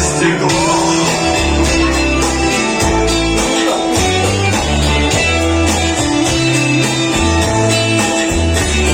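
Instrumental passage of a rock song: strummed guitar over a bass line that changes note every half second or so, with no singing.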